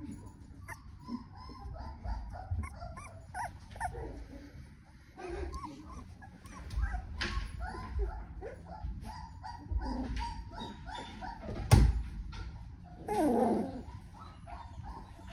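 A litter of 2.5-week-old Goldendoodle puppies whimpering and squeaking: many short, high whines overlapping one another, with one longer, louder whine just after 13 seconds. A single sharp knock about 12 seconds in is the loudest sound.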